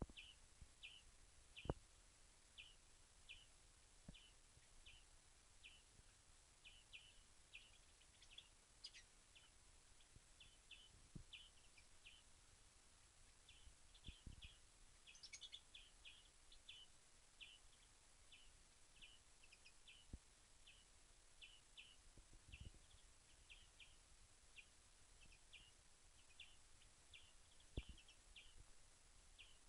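A bird giving short, high chirps over and over, about one or two a second, faint, with a few low knocks in between.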